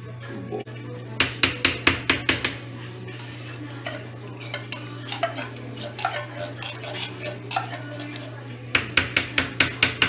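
Runs of sharp metallic taps, about five a second, as a spoon scrapes and knocks sweetened condensed milk out of a tin into a blender jar. Softer scraping taps come between the runs, one run starting about a second in and another near the end.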